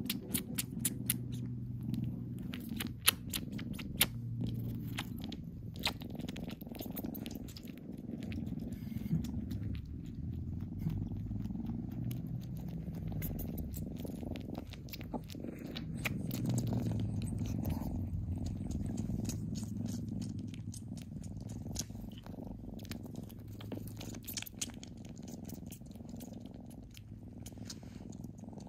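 A kitten purring steadily and low, with scattered small sharp clicks, thickest in the first few seconds.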